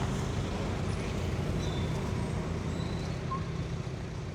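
City street traffic: a motor vehicle's engine running steadily close by, a low hum over general street noise.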